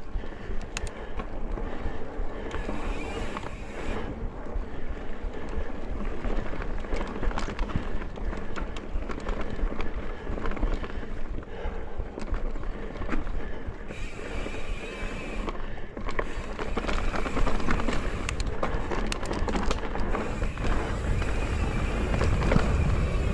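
Mountain bike ridden over a dirt singletrack trail: tyres rolling and crunching over the dirt, with frequent rattles and knocks from the bike over bumps. The rumble grows heavier near the end.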